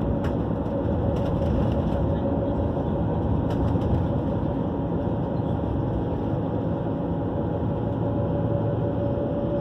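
Cabin noise of a moving vehicle at speed: a steady rumble of running noise with a thin, steady whine above it that grows a little stronger about halfway through.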